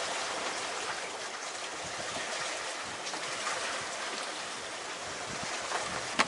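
Steady rush of wind and water around a sailboat under sail in rough, choppy seas, with a single sharp knock near the end.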